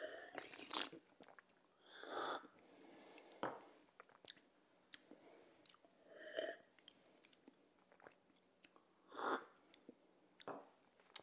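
A person sipping and slurping espresso and water, with quiet swallows; three short slurps stand out, about two, six and nine seconds in. A few light clicks of small drinking glasses come in between.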